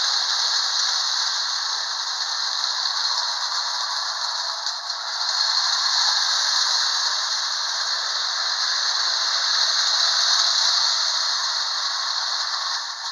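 Marx 400 toy train locomotive running steadily under its electric motor, pulling a tender and four vintage cars along the track, with wheels and motor giving a continuous rattle and whir.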